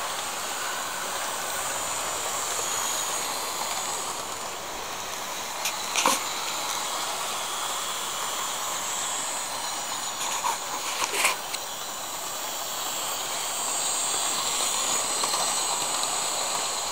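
Hornby model locomotives running on toy track: a steady whirring hiss from the small electric motors and wheels on the rails. A few sharp clicks come about six seconds in and again around ten to eleven seconds in.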